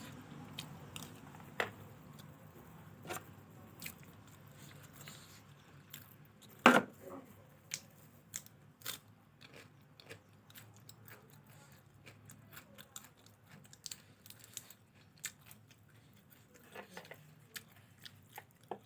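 A person chewing fried rice close to the microphone: scattered small clicks and mouth smacks, with one loud knock about a third of the way in.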